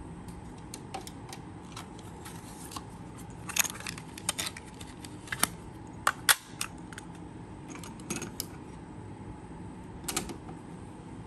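Scattered sharp plastic clicks and clacks as a cassette is handled out of its case and loaded into a Kenwood KX-400 cassette deck. A transport key clicks down near the end.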